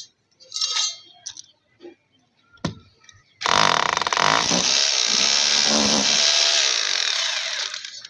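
Corded electric drill boring into a concrete roof slab, running steadily for about four seconds from about three and a half seconds in and easing off near the end. A few short knocks come before it.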